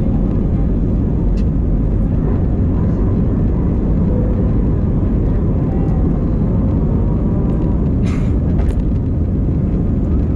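Airbus A320-200 cabin noise heard from a passenger seat: a loud, steady low rumble of the IAE V2500 engines and airflow, with a couple of brief clicks about eight seconds in.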